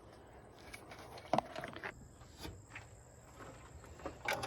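Handling of a voltmeter and its test leads: a few faint knocks and clicks over a low background.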